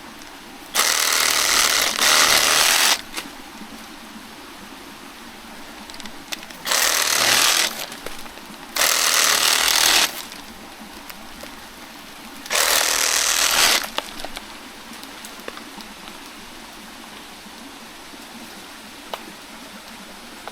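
Reciprocating saw with a 12-inch pruning blade cutting into a banana plant's stem in four short runs: one of about two seconds starting about a second in, then three of about a second each.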